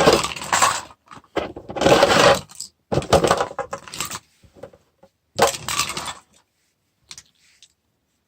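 Small metal items, pocket knives, clinking and clattering together as they are handled, in four bursts over about six seconds, then a couple of faint clicks.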